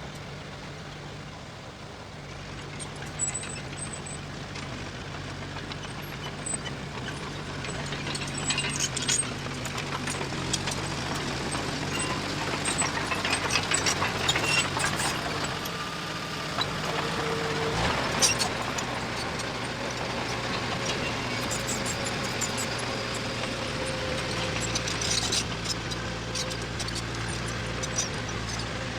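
Diesel engine of heavy earthmoving machinery running steadily, with scattered knocks and rattles from the machine at work.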